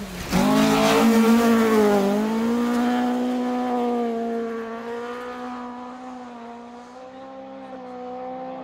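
Rally car engine at high revs on a gravel stage, loudest in the first two seconds. The pitch dips briefly about two seconds in and comes back up, then holds steady while the engine slowly fades into the distance.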